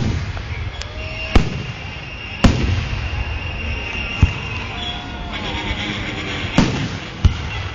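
Fireworks shells bursting in a display, about six sharp bangs a second or two apart, with music playing underneath.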